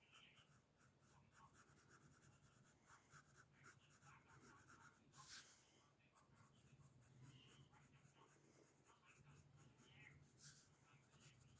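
Faint pencil scratching on paper: many quick, short sketching strokes, with two longer, louder strokes about five and ten seconds in.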